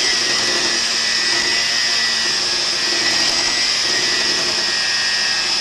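Electric mixer running steadily with an even whine, beating butter and chocolate into a fluffy buttercream.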